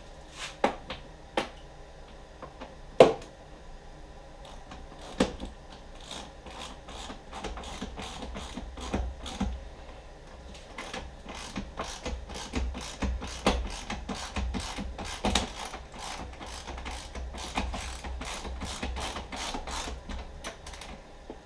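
Hand socket ratchet clicking in long fast runs as it turns a Torx bolt on the BMW X5's lower tailgate spring mount. A few separate sharp knocks of the tool against metal come first, the loudest about three seconds in.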